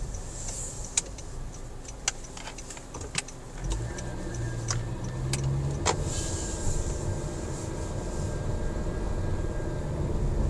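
Car engine and road noise heard from inside the cabin while driving, the engine note rising and strengthening about four seconds in as the car pulls away, with scattered sharp clicks in the first half.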